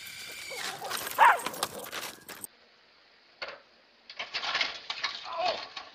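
Dogs scuffling at a small RC car, with a dog's loud bark about a second in among rapid clattering. The sound cuts off sharply, then comes a brief knock and a couple more seconds of rattling, clattering noise.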